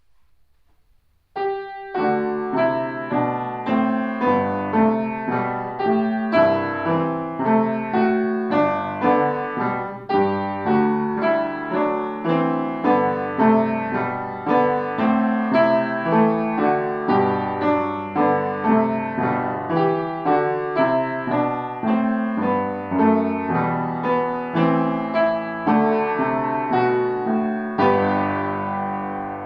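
Piano playing a steady, even piece at about two strokes a second, starting about a second and a half in and ending on a held chord that rings away near the end.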